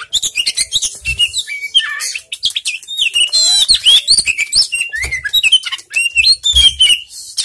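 Oriental magpie-robin singing: a fast, varied run of whistles and chirps, with a quick trill about three and a half seconds in. A few soft low thumps sound beneath the song.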